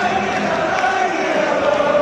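Stadium football crowd singing a chant together, massed voices holding a slow, wavering tune over general crowd noise.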